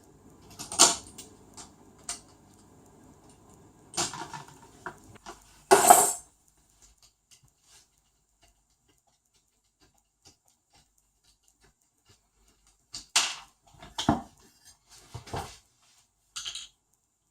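Intermittent clicks and clatter of small plastic RC-car parts and tools being handled and set down during disassembly, with one louder knock about six seconds in and a quiet stretch in the middle.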